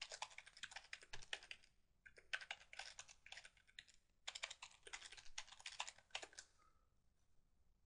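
Computer keyboard typing: faint, quick keystrokes in three runs with short pauses between them.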